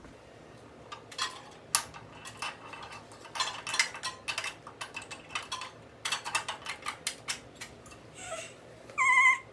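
Small metal parts and tools clicking and clinking as they are handled, in irregular sharp clicks and quick clusters. A short wavering high tone comes near the end.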